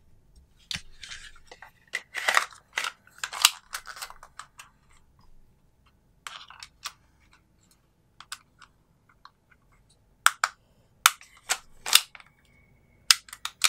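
Tokyo Marui USP9 airsoft pistol's plastic and metal parts being handled and fitted together: scattered clicks, scrapes and snaps as the slide goes back onto the frame, with several sharp clicks in the last few seconds.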